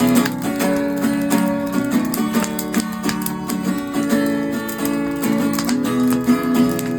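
Guitar being played, a rhythm of strums mixed with picked notes, with no singing.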